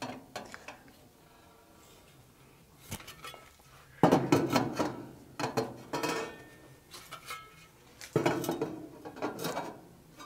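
Metal heat-deflector bars being laid into a gas grill's firebox over the burners, clattering and clinking against the steel in several bouts after a quiet start.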